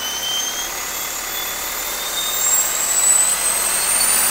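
Isuzu NHR55 turbo-diesel engine pulling under acceleration, heard inside the cab with the engine cover off. Its newly re-cartridged turbocharger gives a high whine that rises steadily in pitch and levels off near the end.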